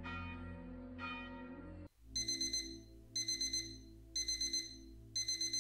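A bell rings, struck again about a second in, then stops. From about two seconds in, an Aiwa digital alarm clock beeps: short rapid high beeps in groups, one group every second, four groups in all.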